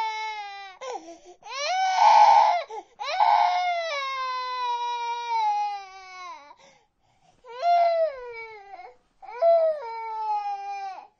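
A baby crying in long, drawn-out wails, each falling in pitch, with short breaks for breath. About two seconds in comes a louder, harsher cry.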